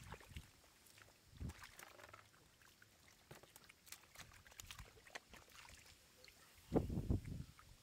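Water splashing and sloshing in shallow muddy water as hands move through it, with scattered small clicks and crackles and a louder burst near the end.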